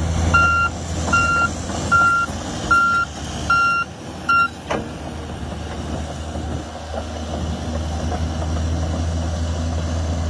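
Backhoe loader reversing: its backup alarm beeps about once every 0.8 seconds over the steady running of its diesel engine. The beeping stops a little over four seconds in, followed by a single short knock, and the engine keeps running.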